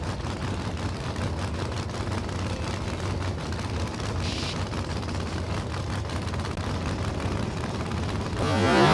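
A drag-radial race car's engine running, a steady low rumble with rapid pulsing and a short hiss about four seconds in. Music comes in near the end.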